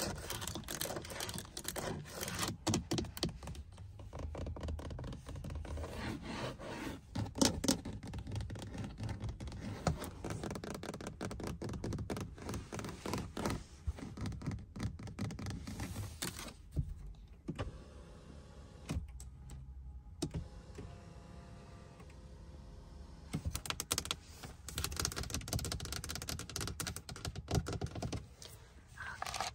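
Fast fingertip and fingernail tapping and light scratching on a car's interior door panel: plastic window and seat switches, padded door trim and wood panel, in quick clicky runs. The tapping thins out to a few soft taps about two-thirds of the way in, then picks up again near the end.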